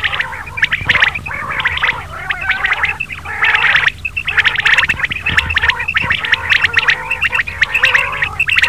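Many quail (batair) calling at once in a dense, continuous chatter of quick, overlapping calls, with brief lulls about three and four seconds in.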